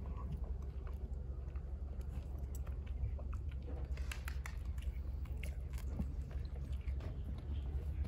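Simmental calf drinking from a plastic bucket: irregular wet slurps and mouth clicks, over a steady low rumble.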